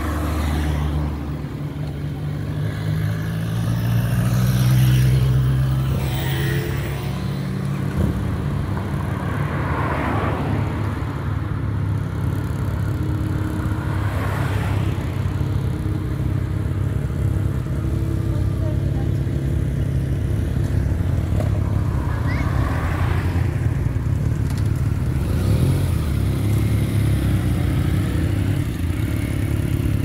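A group of motorcycle engines running and moving off at low speed, with cars passing; one vehicle swells loudest about five seconds in.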